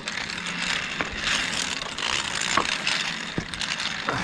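Zip-line trolley running along a steel cable, a steady rushing hiss with a few sharp clicks and clanks from the pulley and clips.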